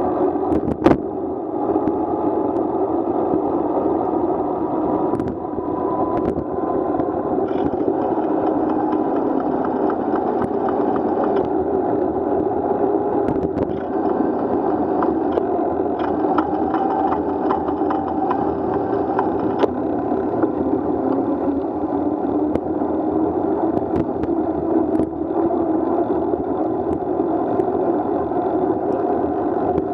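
Steady muffled rumble of riding a bicycle through traffic on a wet road: wind on the microphone, tyres on wet pavement and the engines of the cars just ahead. There is a single sharp click about a second in.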